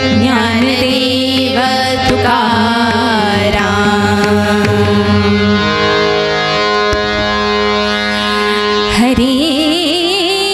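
Devotional bhajan music: women singing with a melodic accompaniment and drum strikes. The voices break off about halfway through while the accompaniment holds steady notes, and come back in about nine seconds in.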